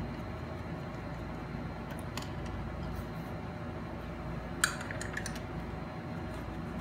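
Small metallic clicks and clinks of a precision screwdriver and tiny screws as a MacBook Pro's bottom case is unscrewed, with one sharper clink and a few quick smaller ones about four and a half seconds in, over a steady low room hum.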